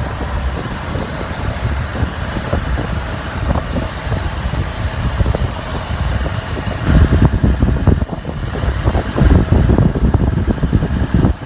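Wind buffeting the microphone: a loud, low rumble in irregular gusts, strongest about seven seconds in and again from about nine to eleven seconds.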